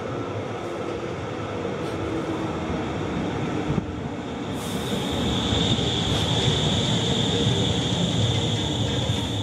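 A new HeiterBlick/Kiepe B80D light-rail car running slowly into and along a station platform, its low rumble growing louder as it nears. A high, steady squeal sets in about four and a half seconds in and holds as the car passes.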